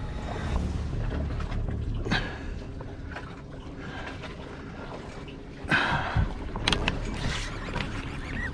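Low rumble of wind and water on the microphone aboard a small boat at sea, with a few short scrapes and knocks from the rod and reel being handled during a fish fight; the loudest comes about two-thirds of the way in.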